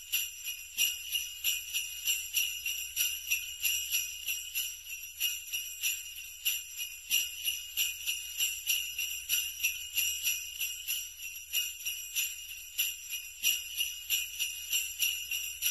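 Sleigh bells jingling in a steady rhythm, about three shakes a second.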